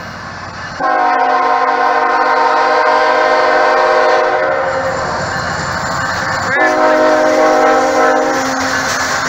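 Diesel locomotive's multi-chime air horn sounding a chord of several notes in two long blasts: one of about three and a half seconds starting just under a second in, and a shorter one starting around six and a half seconds in. The noise of the train runs underneath.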